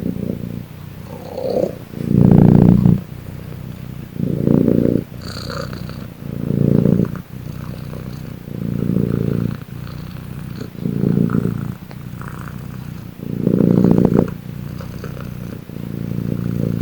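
Domestic cat purring steadily, swelling louder about every two seconds with each breath.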